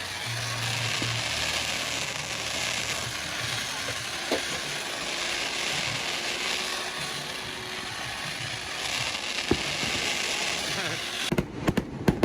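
Fireworks show: a steady wash of noise with a few isolated pops, then a quick run of sharp firework bangs about a second before the end.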